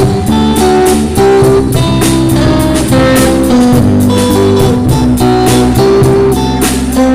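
Live rock band playing an instrumental break between sung lines, with guitar carrying held, changing notes over bass and steady drum hits.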